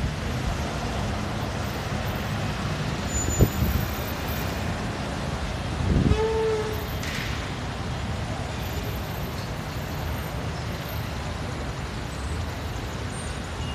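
Steady rumble of city traffic, with a sharp knock a few seconds in and a short vehicle horn toot about halfway through.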